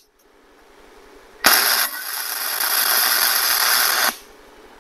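Electric welding arc laying a tack weld on steel: one steady hiss of about two and a half seconds that starts sharply about a second and a half in and cuts off abruptly.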